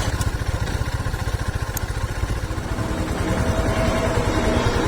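Royal Enfield Himalayan's single-cylinder engine running through its stock exhaust, with a steady low thumping beat. About three seconds in, a steady higher tone joins the engine note.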